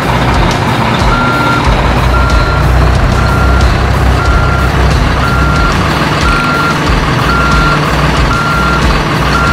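Toy dump truck's electronic reversing beeper sounding about once a second, a steady high beep repeated evenly, over a continuous low rumble.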